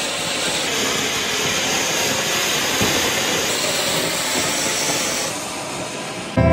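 Ground fountain firework (anar) spraying sparks with a steady hiss that eases slightly near the end.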